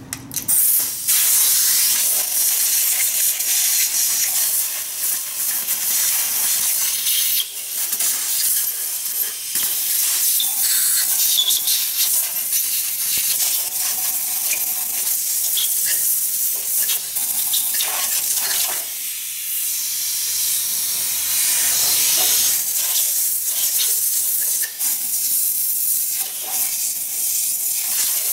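Compressed-air blow gun hissing, with a few short breaks, as it blows dust and rust debris out of the open cylinders of a seized 4G63 engine block. This clears the cylinders before they are soaked with penetrating oil to free the stuck pistons.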